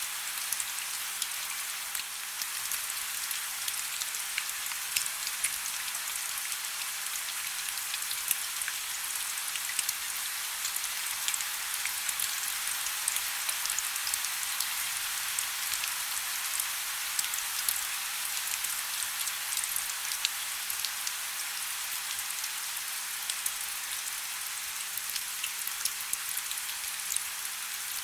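Heavy rain falling steadily: a constant bright hiss speckled with countless separate drop ticks, with almost no low rumble.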